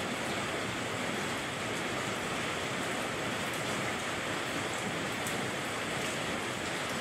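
Steady rain falling, an even unbroken hiss with a few faint ticks.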